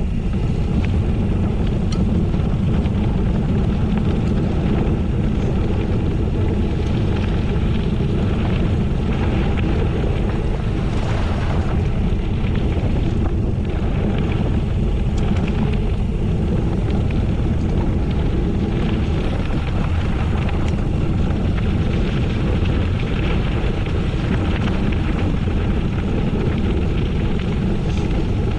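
Steady wind rush buffeting the microphone of a camera carried on a moving gravel bike, with the rolling hiss of tyres on gravel mixed in.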